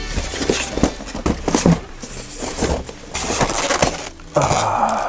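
Styrofoam packaging and a plastic toy car being handled and pulled apart: scattered knocks, clicks and rubbing, with a longer scraping stretch near the end.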